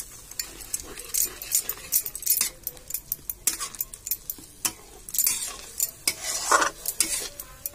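A metal spatula stirring and scraping thick masala gravy in a black kadai, with irregular clinks and scrapes against the pan over the sizzle and bubbling of the gravy as it heats toward the boil after water has been added. There is a brief louder sound about six and a half seconds in.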